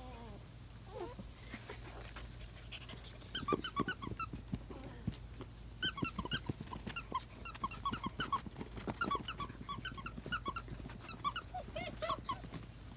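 German Shepherd puppies, about six weeks old, playing tug with a plush toy: quick runs of short high squeaks and whines, with a few scuffling knocks.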